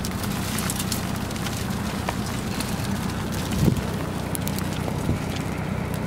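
Ice pellets ticking and rattling against a car, many sharp irregular ticks over the steady hum of the car's idling engine.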